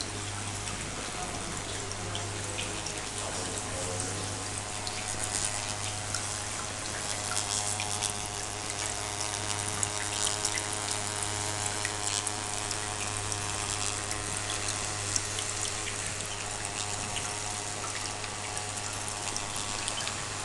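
Water trickling from a miniature nativity-scene fountain into its small pebbled pond, over a steady low hum.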